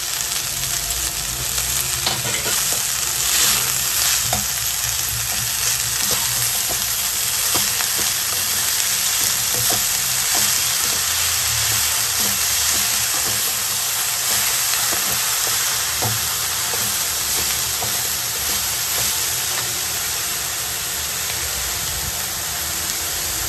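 Freshly washed, chopped amaranth greens sizzling steadily in hot oil in an aluminium kadai, with the light scrape and clink of a metal spatula stirring them.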